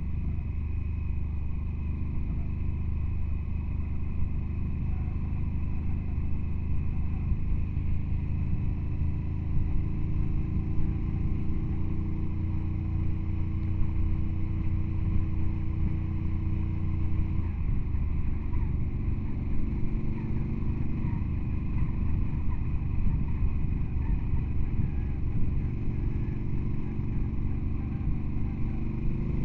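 Vehicle engine running steadily under way, its note changing about two-thirds of the way through.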